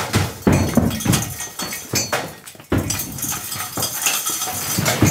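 Irregular clatter of bricks and stone rubble being shifted and knocked together, with sharp clinks and dull thuds.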